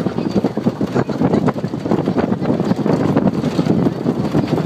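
Wind buffeting the microphone over the rumble of a pickup truck driving on a dirt road, heard from its open cargo bed, with many irregular knocks and rattles.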